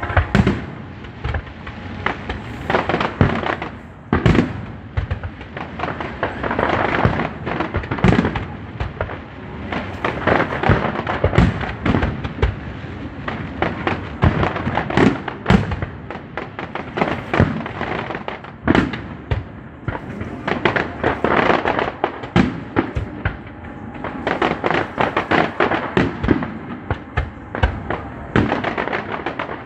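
Aerial fireworks shells bursting in a continuous barrage, bangs coming several times a second with a few louder bangs standing out.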